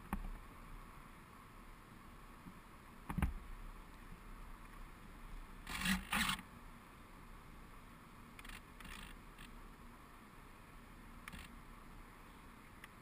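Faint steady hiss heard through a cased GoPro, with a few short clicks and knocks. The loudest is a double knock about six seconds in, with a single sharp knock before it and lighter ticks later.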